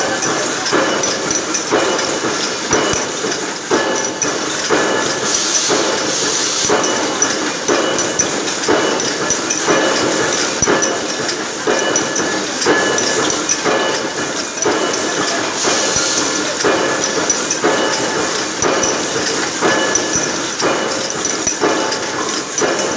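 Automatic BST trimmer machine for aluminium aerosol cans running, clattering in a regular rhythm of a little more than one stroke a second. Two short bursts of hiss come through, about five seconds in and again near sixteen seconds.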